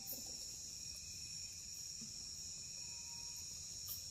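Crickets chirping steadily in a continuous high-pitched night chorus, with a couple of faint clicks, one just after the start and one near the end.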